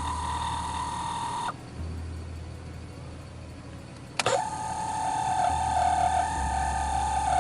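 Nissan A31 Cefiro's air-conditioning mode door actuator squealing as it moves the vent door: a steady high squeak that stops about a second and a half in. About four seconds in there is a click, and the squeal starts again, louder and wavering. The squeal is the abnormal noise traced to a faulty mode door actuator, still there with silicone grease applied.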